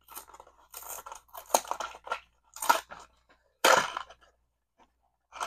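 Cardboard LEGO minifigure box being pulled and torn open by hand: a series of short tearing and crinkling rips, the longest and loudest about three and a half seconds in.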